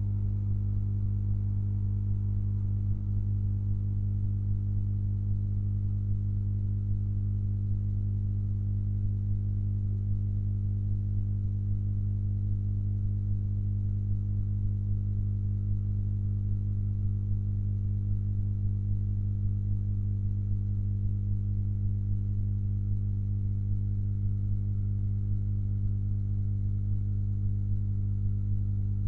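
Steady low electrical hum with a ladder of even overtones, unchanging in pitch and level throughout.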